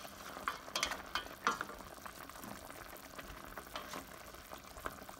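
Chicken adobo simmering in a stainless steel pan: the soy-sauce braise bubbling and sizzling steadily, with scattered sharp pops, a cluster of them in the first second and a half.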